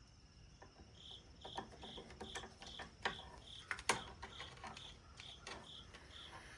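Light clicks and knocks as transducer-mount parts are handled and fitted onto a trolling motor shaft. Under them runs a short high beep or chirp, repeating evenly about two and a half times a second from about a second in to near the end.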